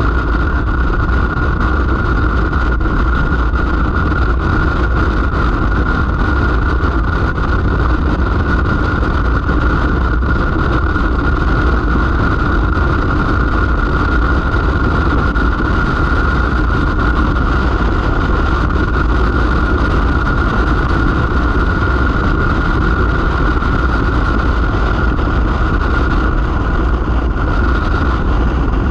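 Vehicle cruising at steady speed: an unbroken low engine and road noise with a steady high whine running through it.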